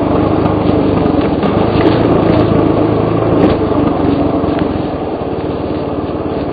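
Suzuki DR350's single-cylinder four-stroke engine running under way on a rough dirt trail, with a few sharp knocks mixed in. It eases off a little past the middle.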